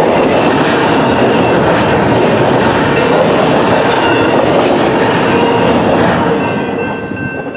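Double-stack intermodal freight cars rolling past at speed, with a steady rush of wheel and rail noise. The noise fades away about six seconds in as the last car goes by.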